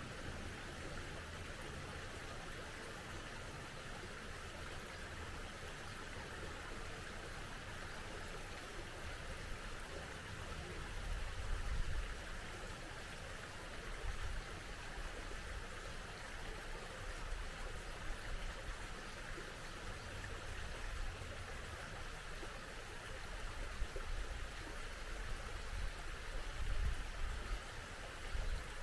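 Steady rushing of a small mountain stream, with a low rumble swelling up about a third of the way in and again near the end.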